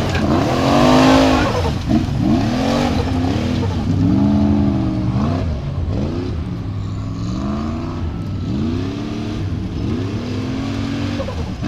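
Formula Offroad buggy's engine revving hard again and again under heavy load on a steep dirt hill climb, its pitch sweeping up and dropping back about every second or so as the throttle is worked.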